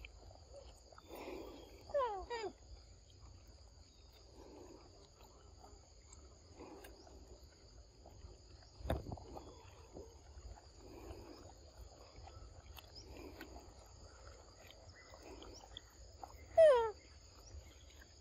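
Forest insects keep up a steady, high, two-toned trill. Over it come soft intermittent rustling and a sharp knock about nine seconds in. A loud, quickly falling call sounds twice, once about two seconds in and louder near the end.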